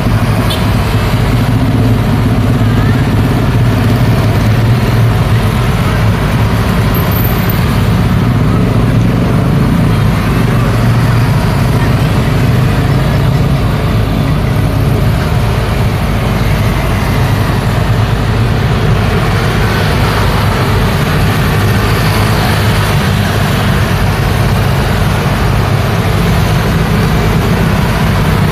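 Steady street traffic: motor scooters and cars passing with a continuous low engine drone and tyre noise.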